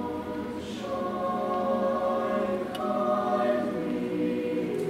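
Mixed choir of female and male voices singing long held chords, the harmony moving to a new chord about a second in and again near three seconds.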